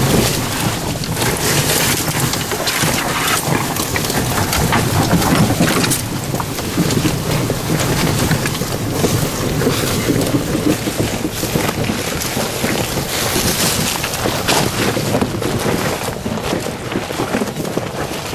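Continuous rumbling clatter of a Polaris Ranger EV electric utility vehicle crawling over rocks: tyres crunching and the body and cab knocking and rattling, with no engine sound under it.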